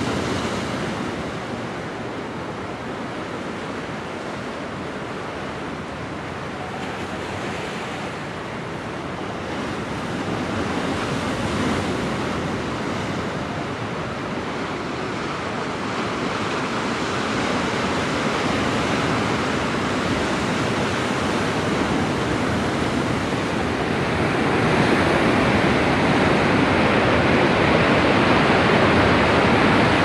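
Ocean waves washing onto a sandy beach: a steady rush of surf that swells and ebbs, growing louder in the last third.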